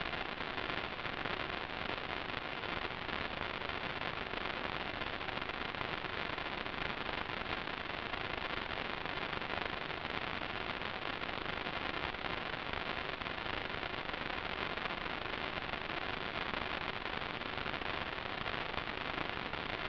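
Steady, even hiss of static from an analog FPV video link's audio channel, unchanging throughout.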